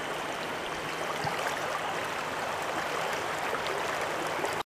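Shallow river water running over stones, a steady rushing; it cuts off abruptly near the end.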